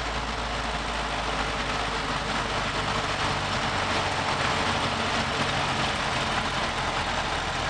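1930 Ford Model A pickup's four-cylinder flathead engine running steadily while driving, heard from inside the cab. It is very noisy because the carburetor has no air cleaner, and the engine is mixed with road and wind noise.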